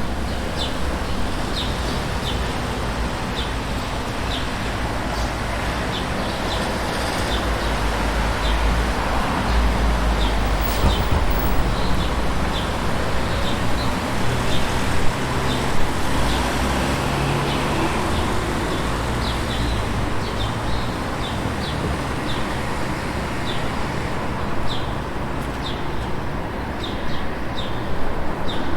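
City street ambience: a steady rumble of road traffic, swelling in the middle as vehicles pass closer, with small birds giving short high chirps about once a second throughout.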